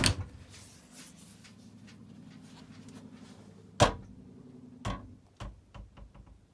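Sharp knocks and clicks inside a small travel trailer: a loud knock at the start and another about four seconds in, then a run of lighter clicks near the end, over a faint low hum.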